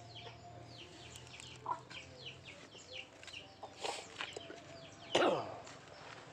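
Chickens clucking in the background, with many short high chirps throughout and one louder call about five seconds in.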